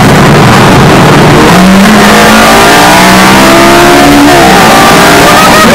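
Lamborghini Gallardo's V10 engine accelerating hard, its note rising steadily in pitch, then breaking off about four seconds in for a gear change and pulling again near the end.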